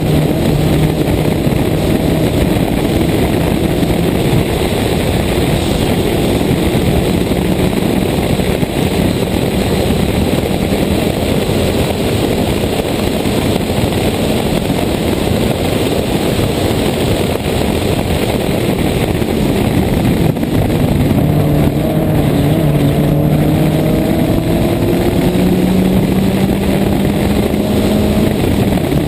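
Toyota Corolla 1.6 rally car's four-cylinder engine driven hard, largely buried under a loud, steady rush of wind and road noise over an outside-mounted microphone. In the last several seconds the engine note comes through more clearly, climbing in pitch as the car accelerates.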